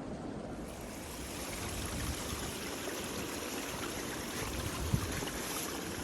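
Strong wind blowing through the forest trees, a steady rushing that sounds far off yet quite loud, growing a little louder about a second in. One brief low thump about five seconds in.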